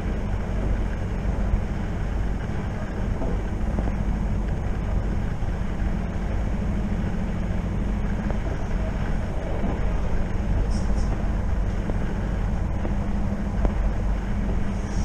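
Steady rumble of a moving electric train heard from inside the carriage: wheels running on the rails with a constant low drone.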